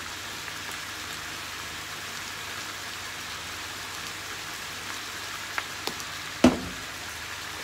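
Spareribs and vegetables sizzling steadily in a frying pan, an even hiss. Two light clicks and then one sharp knock come about a second before the end, the knock the loudest sound.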